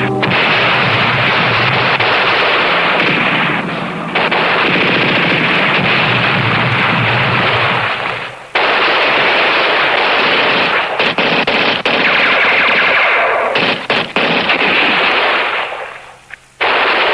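Battle sound effects: continuous, dense machine-gun fire and gunshots. It dips briefly about eight seconds in, fades down near the end, then cuts back in suddenly.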